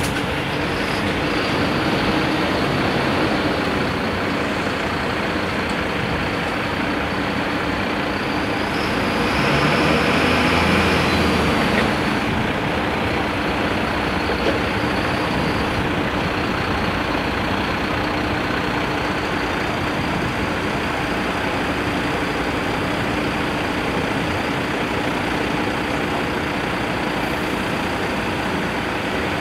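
Diesel engines of Mercedes-Benz fire engines, a turntable ladder and a rescue engine, running steadily as they pull out of the station and wait, with the engine noise swelling for a few seconds about ten seconds in.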